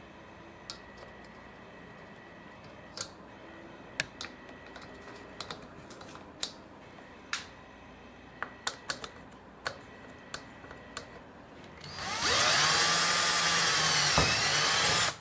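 Scattered light clicks and taps of hand work, then about twelve seconds in a power drill starts up and runs loudly for about three seconds, its pitch rising and falling with the trigger, drilling or driving screws for a bifold door track.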